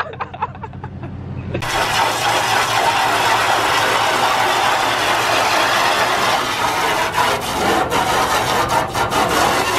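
A vehicle engine idles with a low hum for the first second and a half. Then a garden hose spray nozzle starts a steady hiss of water jetting onto the sheet-metal body and tyres of a 1972 Chevy C10 pickup, with a few brief breaks near the end.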